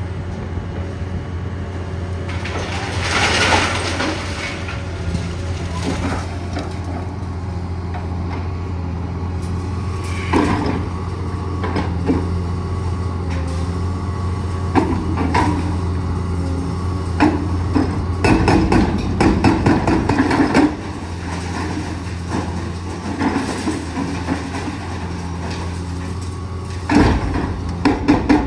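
Liebherr 954 excavator's diesel engine running steadily under load, with scattered clanks and knocks of concrete and debris. A hydraulic breaker hammers in bursts of rapid blows, about five or six a second: once about two-thirds of the way in and again starting near the end.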